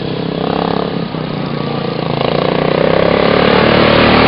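Racing lawn mower engines running hard, growing louder over the last two seconds as they come close.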